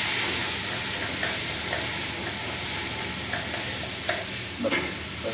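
Steady sizzle of chicken frying in oil, with light knife taps on a cutting board as an onion is sliced, the taps coming more often near the end.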